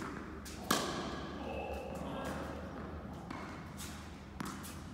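Tennis ball impacts echoing in an indoor tennis hall: one sharp hit about a second in, and a lighter one near the end.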